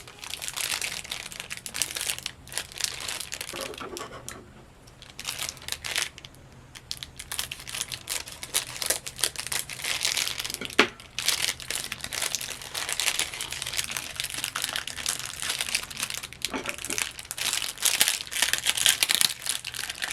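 Packaging crinkling as an art-supply product is unwrapped and opened by hand, in near-continuous rustles with a quieter pause partway through and one sharp click about eleven seconds in.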